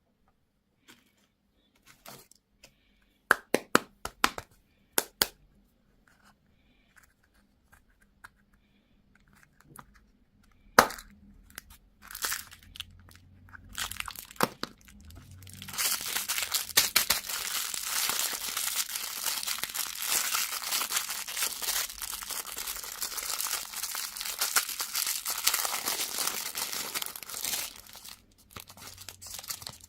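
A few sharp clicks and taps, then a long stretch of a plastic candy wrapper being crinkled and torn open, starting about halfway through and stopping near the end.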